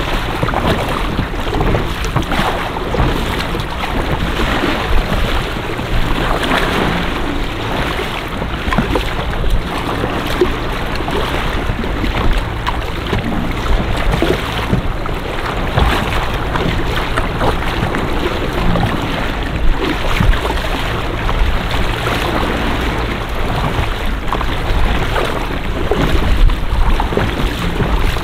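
Motor-driven kayak crossing open water: water rushing and slapping against the hull, with wind buffeting the microphone.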